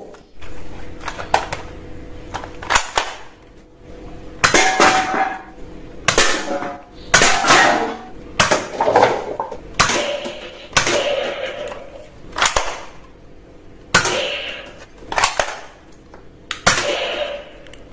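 Toy foam-dart blaster firing again and again, roughly a shot a second, with darts smacking into stacked paper cups and drink cans that clatter as they fall.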